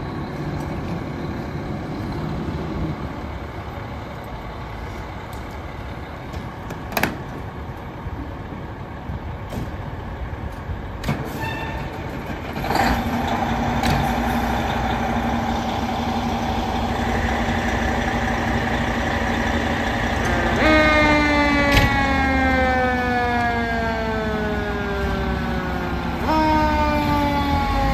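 American LaFrance Eagle fire trucks' diesel engines running as the trucks pull out, with sharp air-brake clicks. About halfway a siren comes in with a steady tone, then winds down slowly in pitch, and near the end jumps up briefly and falls again.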